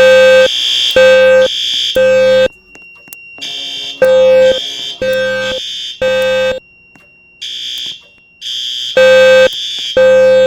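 Fire alarm voice-evacuation speakers sounding the temporal-3 evacuation signal: three half-second horn-tone pulses, a pause, then the pattern again, three groups in all. A higher tone sounds in the gaps between the pulses. Temporal-3 is the standard code that tells occupants to evacuate.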